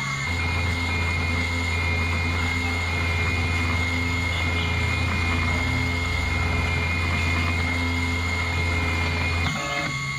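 2417 desktop CNC router engraving aluminium: its 100 W spindle runs with a steady high whine over a low hum, while the stepper motors give tones that shift pitch as the axes move the bit. The low hum drops out briefly near the end.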